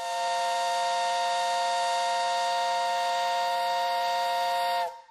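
A sustained electronic chord of several steady tones with a hiss above them, held unchanged and then cutting off sharply about five seconds in, leaving a faint ring of the higher notes.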